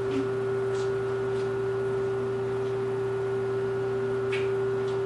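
Steady machine hum, one even tone, from the metal lathe's running motor, with a few faint light clicks.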